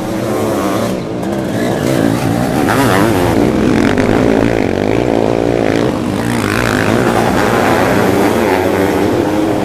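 Several sidecar motocross outfits racing on a dirt track, their engines revving up and down in overlapping rising and falling pitches as they accelerate and pass.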